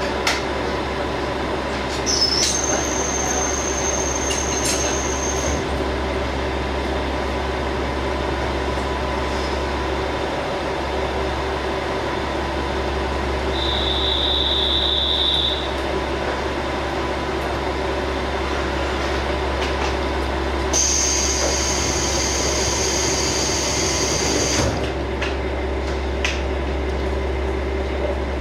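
KiHa 47 diesel railcar under way, heard from inside the passenger car: the steady running noise of the diesel engine and the wheels on the rails. Three brief high-pitched squeals come through, a few seconds each, about two seconds in, near the middle and about three-quarters of the way through.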